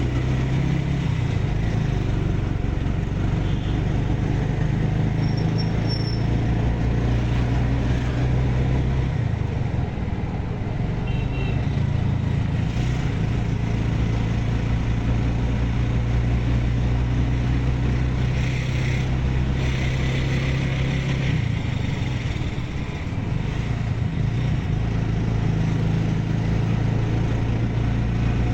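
Road vehicle engine running steadily with tyre and road noise, heard from on board while driving; the engine note shifts about a third of the way in and again about three quarters of the way through.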